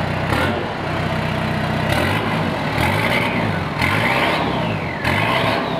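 Toyota Hilux Surf's turbo-diesel engine, running through a new 3-inch turbo-back exhaust with no muffler fitted and the cut-out valve closed. It idles steadily, then from about two seconds in it is revved in several quick blips, each rising and falling in pitch.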